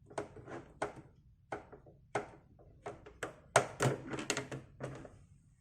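Irregular sharp plastic clicks and knocks as a 512k RAM expansion board is worked out of the Amiga 500's trapdoor expansion slot and handled, about a dozen in all, the loudest cluster past the middle.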